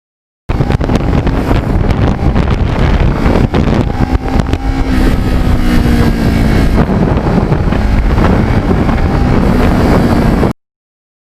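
Kawasaki Ninja 650R's parallel-twin engine running under way, heard under heavy wind buffeting on the microphone. The sound cuts in about half a second in and cuts off suddenly near the end.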